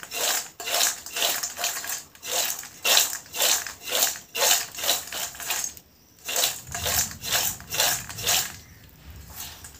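Crisp deep-fried peanuts coated in masala powder tossed in a stainless-steel bowl, rattling against the metal in quick shakes of about three a second, with a brief pause about six seconds in.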